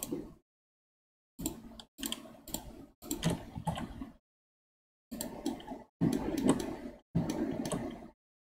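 Computer mouse and keyboard clicking in short bursts, each burst cut off abruptly with silence between.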